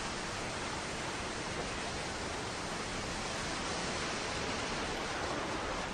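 A steady, even hiss of background noise, with no distinct events.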